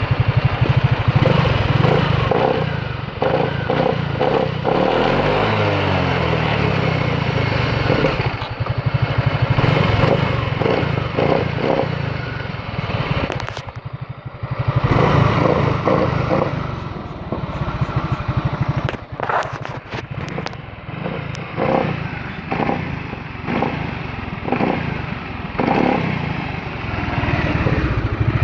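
Suzuki engine running with an abnormal clattering, scraping noise over its steady beat, the strange sound it has developed. The revs shift briefly about five seconds in.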